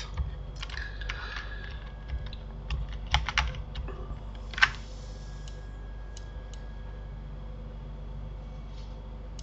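Keys clicking on a computer keyboard: a few presses near the start, a quick cluster about three seconds in and a single sharper click a second and a half later, then a few faint ticks, over a steady low hum.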